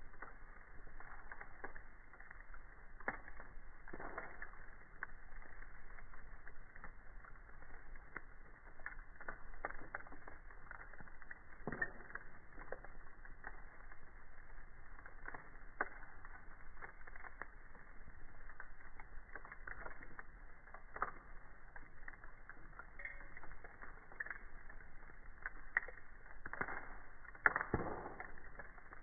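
Wood campfire crackling and popping: a steady hiss with frequent sharp snaps from the burning wood, and a few louder pops near the end.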